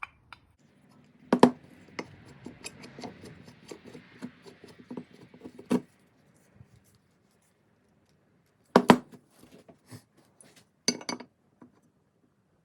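Metal parts of an old hand plane clinking and knocking as the plane is reassembled: a few sharp knocks, with light scraping between the first two.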